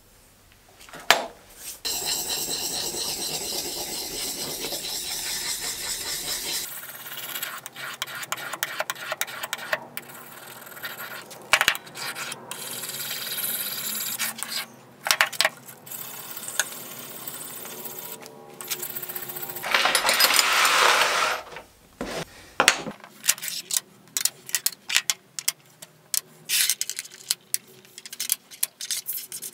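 Metal rubbed back and forth on a sharpening stone and abrasive paper, a scraping that runs steady at first and then comes in separate strokes, while the fillister plane's iron and fittings are sharpened and cleaned. From about two-thirds through, small brass and steel plane parts clink and tap as they are set down one by one on a wooden tabletop.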